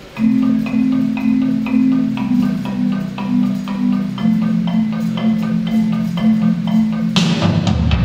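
Recorded music starting abruptly: a quick repeating melodic figure at about four notes a second over a held low note, then a loud full-band section comes in about seven seconds in.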